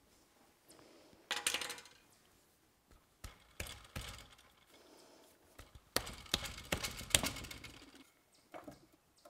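Metal clicks, knocks and rattles of parts being handled on a drill press head as its gearbox cover is worked off: a short ringing rattle about a second in, a few sharp knocks around three to four seconds, and a busier clatter about six to seven seconds in.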